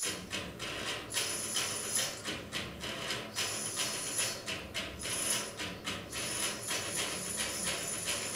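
Rhythmic shaken percussion with jingles, a steady beat of about four strikes a second.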